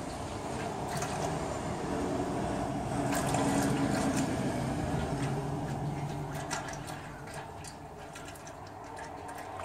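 Transmission fluid draining from the open drain plug hole of a Ford Powershift 6DCT450 dual-clutch gearbox, a steady pouring stream that swells a few seconds in and then eases. Light clicks in the second half as the second drain plug is unscrewed by hand.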